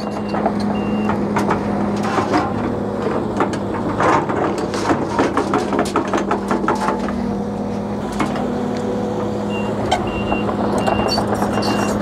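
Case CX130C crawler excavator's diesel engine running steadily under load as the bucket digs and scrapes stony soil, with rocks and dirt clattering through the middle. A faint short beep repeats near the start and again toward the end.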